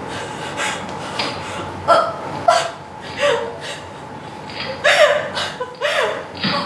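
A woman sobbing and gasping in short, high-pitched, catching cries. There are two clusters of about three cries each, starting about two seconds in and again about five seconds in.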